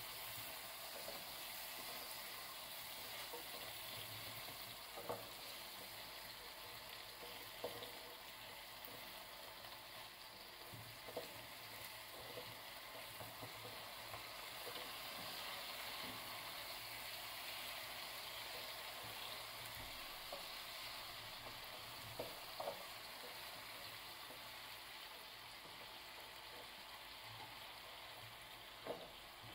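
Apple slices sizzling steadily in caramelized sugar and butter in a frying pan as they are added and stirred with a spatula, with a few light knocks in the pan.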